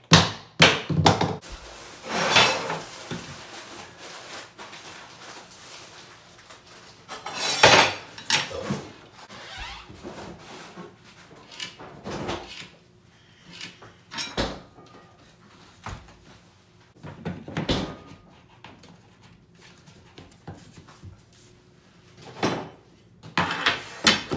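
Laminate flooring planks being handled and fitted together: irregular knocks and taps, with a few short scrapes as boards slide into place.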